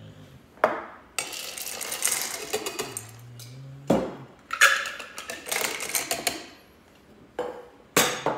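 Ice cubes rattling and clinking into a glass in two longer scoops, with several sharp knocks of glassware on the bar top.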